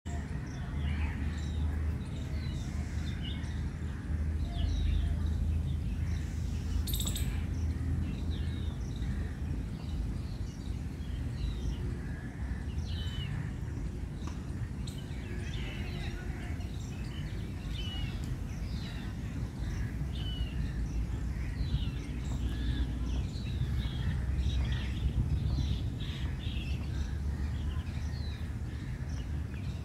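Woodland ambience: many birds calling and chirping in short notes over a steady low rumble, with one brief sharp noise about seven seconds in.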